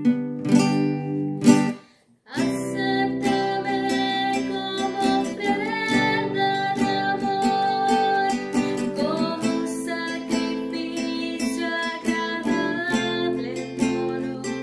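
Nylon-string classical guitar played in chords, with a short break about two seconds in before the playing resumes.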